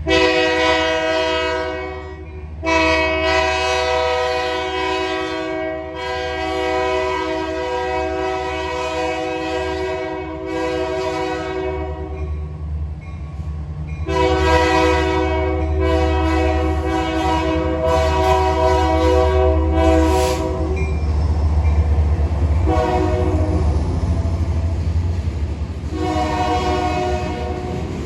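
Union Pacific freight locomotive's multi-note air horn sounding a series of long blasts, then a short one and a final long one. A low diesel rumble runs underneath and swells as the locomotive passes.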